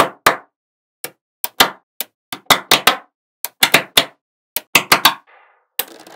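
Small magnetic balls snapping together in sharp, irregular clicks, often two in quick succession. Just before the end a steady hiss starts under fainter ticking.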